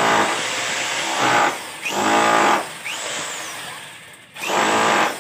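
Electric rotary hammer boring a hole through a wall, run in bursts: it is running as the sound opens, stops about a second and a half in, then is triggered twice more for short runs, its motor whine rising as each burst starts.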